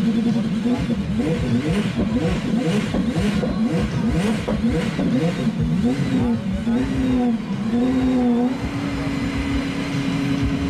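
Aston Martin Valkyrie AMR Pro's 6.5-litre naturally aspirated Cosworth V12 revved while the car stands still: a rapid run of throttle blips rising and falling in pitch, then a few slower swells, settling into a steady fast idle about three-quarters of the way through.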